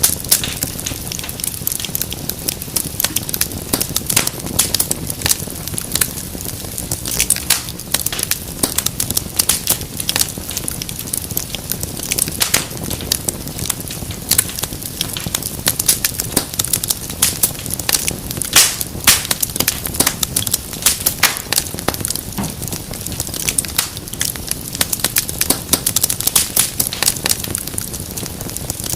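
Wood fire crackling: dense, irregular sharp pops and snaps over a steady low rush of burning logs.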